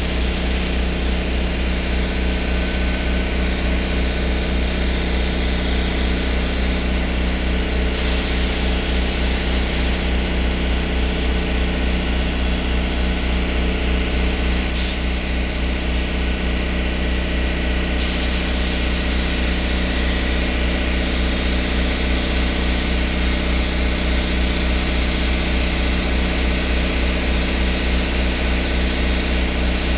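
Air-fed paint spray gun hissing as clear coat is sprayed: briefly at the start, again about 8 seconds in for two seconds, a short burst near 15 seconds, then steadily from about 18 seconds on. Under it an air compressor runs steadily with a fast pulsing hum.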